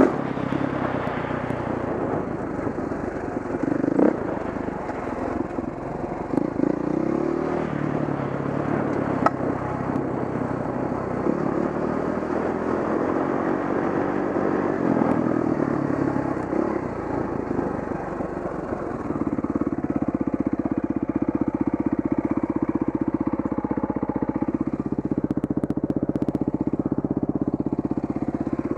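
Dirt bike engine running as it is ridden along a dirt trail, the revs rising and falling with the throttle, then held steadier and a little louder for roughly the last ten seconds.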